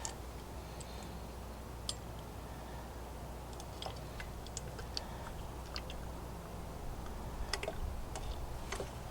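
Car soap being poured into a plastic foam cannon bottle: faint handling sounds, with scattered small clicks and taps and a little more activity near the end.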